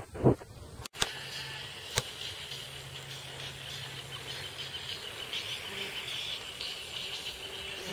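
A gust of wind buffeting the microphone, cut off abruptly just before a second in; then steady outdoor ambience of insects chirring in an even high band, with a faint low hum.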